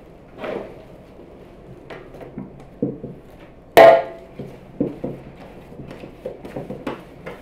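Bread dough being shaped by hand on a floured wooden board: irregular soft thuds and knocks, with one sharper, much louder knock with a short ring about four seconds in.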